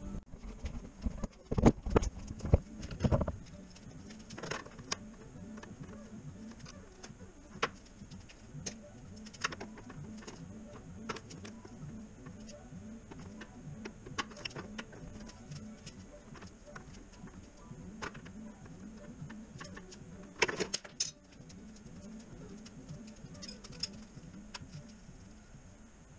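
Hand tools and metal parts clinking and knocking during work on a car's oil filter adapter. There are a few loud knocks in the first few seconds, then scattered light clicks, and a brief cluster of clatter about 20 seconds in.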